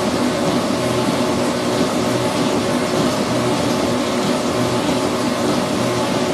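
CNC gear shaping machine running, a steady mechanical hum with several constant tones over a noisy whir.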